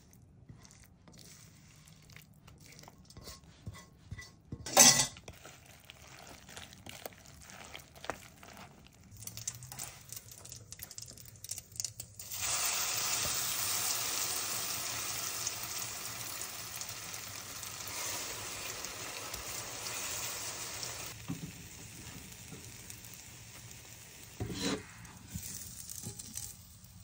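Eggplant-and-egg omelette mixture hitting a hot frying pan: a loud sizzle starts suddenly about halfway through and eases to a quieter sizzle. Before it come a spoon clinking and stirring in a plastic bowl and one loud knock; near the end there is a short clatter of cookware.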